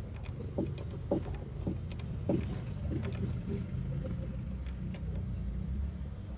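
Mitsubishi 4D56 diesel engine running at idle with a steady low drone, and a few short knocks in the first half.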